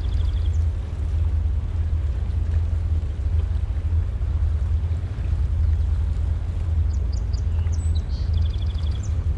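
MerCruiser 7.4-litre (454) inboard engines of a Sea Ray 330 Sundancer running at slow cruising speed, a deep steady rumble. Small birds chirp briefly at the start and again near the end.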